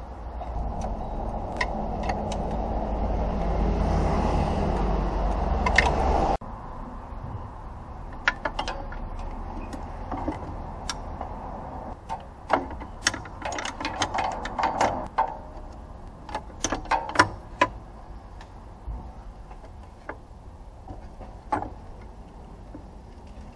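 A steady mechanical running noise that grows louder for about six seconds and stops abruptly, followed by scattered sharp clicks and knocks.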